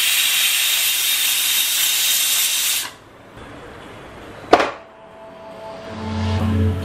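Prestige pressure cooker letting off steam through its weight valve, a loud hiss that cuts off suddenly about three seconds in. A little later comes one sharp knock.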